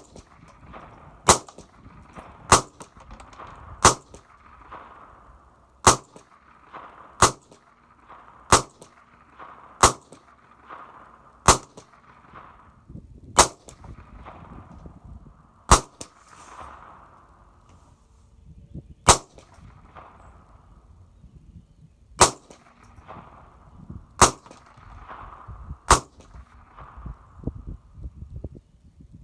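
.22 rifle firing at a steady, deliberate pace: about fifteen single shots, one every one to three seconds, each trailing off in a short echo, with a longer pause about halfway through.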